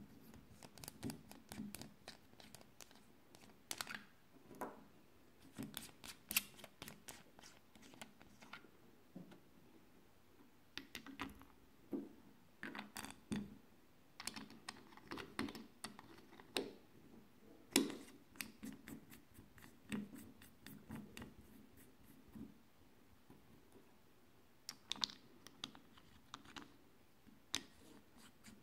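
Knurled screw-on battery caps being unscrewed and screwed back onto a small black metal housing as CR123A cells are put in by hand: a scatter of irregular light clicks, taps and scrapes.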